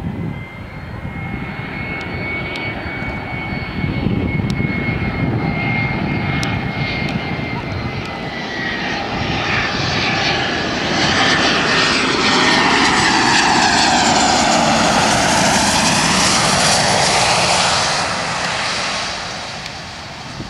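Twin-engine business jet on landing approach: a high turbine whine over engine noise, swelling into a much louder rush about halfway through as it passes low, with a sweeping, phasing hiss, then dropping away near the end as it touches down.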